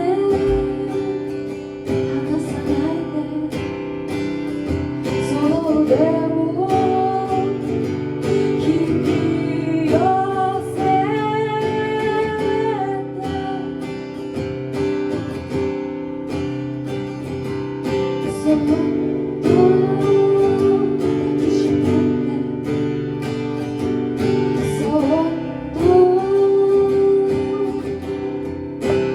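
Acoustic guitar played with a voice singing long, gliding notes over it.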